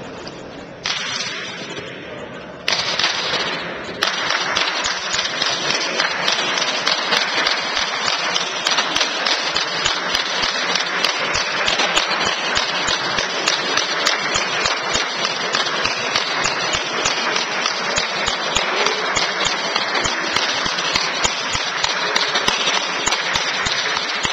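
A crowd shouting and clapping: a loud, steady din of voices with rapid claps. It jumps up in steps over the first few seconds and then holds.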